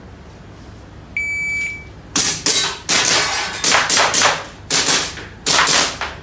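A shot-timer start beep, one steady high tone about a second in, followed by a rapid string of shots from an Action Air airsoft gas pistol, roughly two to three a second.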